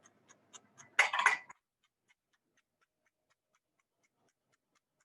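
Chef's knife chopping rolled basil leaves on a cutting board, making quick, even taps several times a second, with a louder clatter about a second in.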